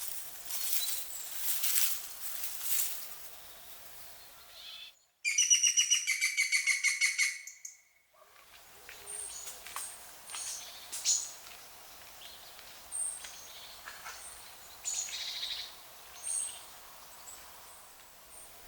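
Wild birds calling, with a loud, rapid trill of about five notes a second lasting nearly three seconds in the middle, and short high chirps scattered before and after it.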